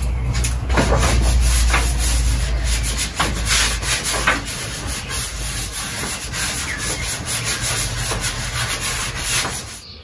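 A charcoal stick rubbing and scraping across a large sheet of paper in repeated strokes, with a low rumble during the first three seconds.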